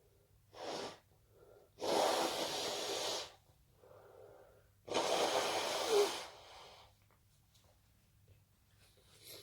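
A person blowing their nose twice, each blow a loud, steady rush of air lasting over a second, with shorter, quieter breaths before and between.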